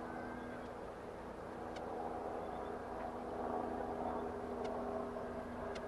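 Steady engine hum with several held tones, growing a little louder about halfway through, with a few faint high ticks.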